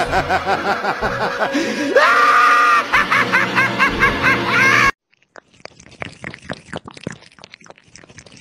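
A person laughing hard in a rapid run of high-pitched shrieks and squeals for about five seconds. It cuts off suddenly and gives way to a quiet, quick run of small wet clicks: a cat lapping water.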